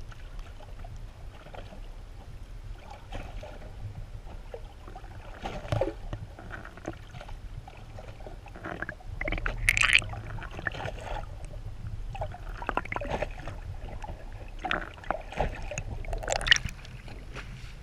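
Underwater sound from a camera held just below the sea surface: water sloshing and bubbling against it in irregular bursts over a steady low rumble.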